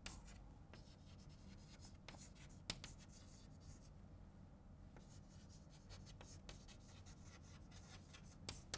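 Faint scratching and tapping of chalk on a blackboard as words are written, with a sharper tap a little under three seconds in and another near the end, over a low room hum.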